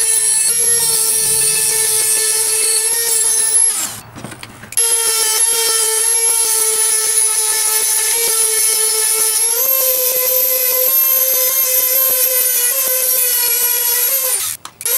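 Dremel rotary tool with a cut-off wheel running at high speed, grinding a slit into a metal light-bar mounting bracket: a steady high whine that stops for about a second partway through, then picks up again and rises slightly in pitch later on.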